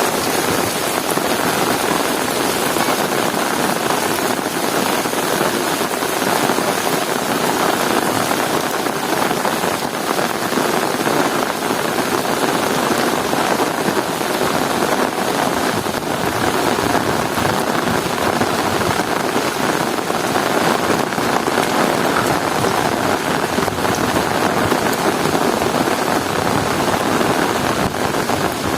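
Heavy rain falling steadily, a dense even hiss of drops on surfaces with no thunder or distinct impacts.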